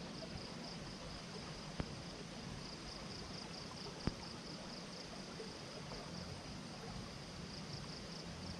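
Night insects chirring steadily in a high band over the hiss of a flowing river, with two small sharp clicks, one about two seconds in and one about four seconds in.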